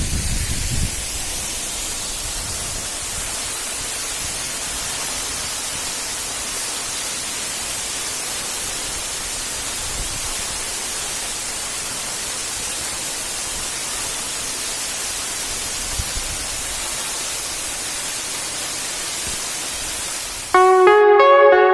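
Steady rush of a waterfall, an even hiss with most of its weight in the high range. Near the end it cuts off suddenly and plucked-guitar music takes over.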